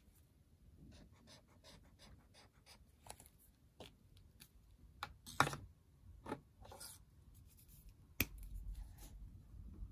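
Small plastic clicks and taps as a Stabilo Boss highlighter is handled and set down: light ticks at first, several louder clicks in the middle, and a sharp knock a little after 8 seconds followed by a low rumble.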